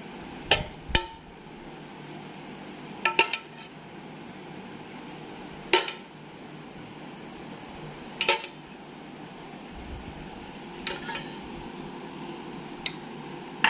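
Metal spoon clinking against a metal pot while fried whole potatoes are placed on chicken and rice, several sharp clinks spaced one to a few seconds apart.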